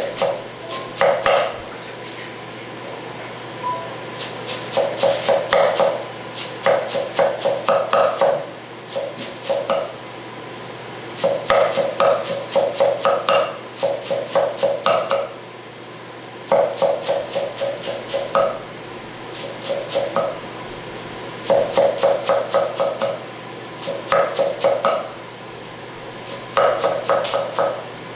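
Chef's knife chopping fresh parsley on a wooden cutting board: quick bursts of rapid knocks, each burst a second or two long with short pauses between, the board ringing with each stroke.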